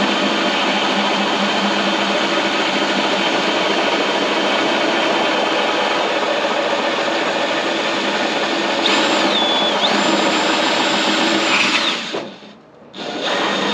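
Power drill running a hole saw through the sheet-metal fender, cutting steadily; a high squeal joins from about nine seconds in. The drill stops for about a second near the end and then starts cutting again.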